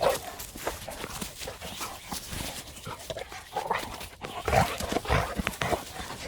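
Two pit bull dogs moving about and playing, with irregular short thumps and scuffles, busiest about four to five and a half seconds in.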